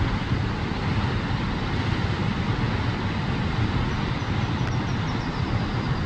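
Steady, loud rush of the Huka Falls: the Waikato River's fast water pouring over the falls.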